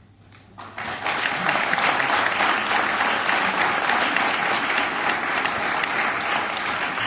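Audience applauding. The clapping starts about a second in and keeps going steadily.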